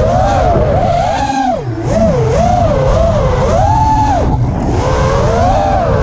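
Miniquad racing drone's brushless motors whining, the pitch swooping up and down again and again as the throttle changes, over heavy wind and prop-wash rumble on the onboard camera's microphone.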